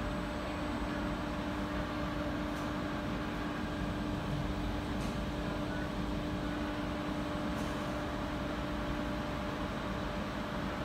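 Stationary Trenitalia Jazz electric regional train idling: its onboard equipment gives a steady hum, with a constant low tone and a second tone about an octave higher, over even fan-like noise.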